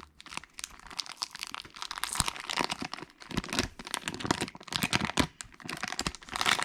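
Packaging being opened by hand: crinkling and tearing, a dense irregular run of rustles and small crackles.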